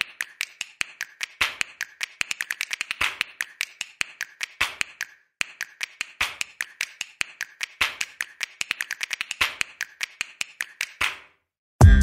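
A quick, uneven run of sharp clicks and taps, several a second, with a short pause about five seconds in.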